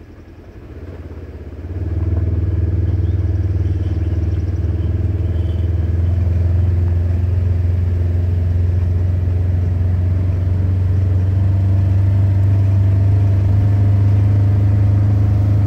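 Vehicle pulling away about a second in and then driving on, its engine and road noise a steady low drone heard from inside the cab.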